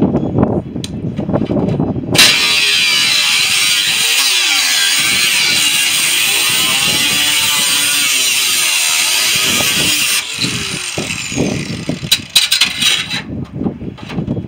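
A power tool running steadily for about eight seconds, then stopping, with irregular knocks and clatter of metal work before and after.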